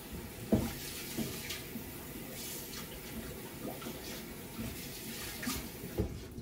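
Kitchen tap running steadily into a sink, with a few light knocks and clinks. The water stops near the end.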